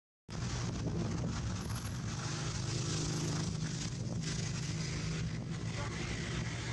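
A steady low engine drone with outdoor background noise. The sound cuts out completely for a moment at the very start.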